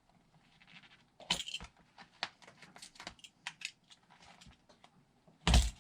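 Razor blade slicing around the rubber of a worn RC car tire, a run of short scratchy clicks and scrapes, with one louder thump near the end.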